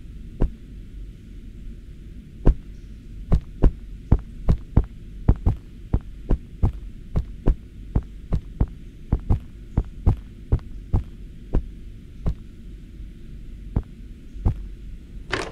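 Footsteps going up a carpeted staircase: irregular knocks at about two to three a second over a steady low hum, with one short louder noise near the end.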